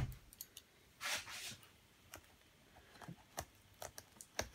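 Hands working at a heavily taped cardboard box: a short scraping rustle about a second in, then scattered light taps and clicks.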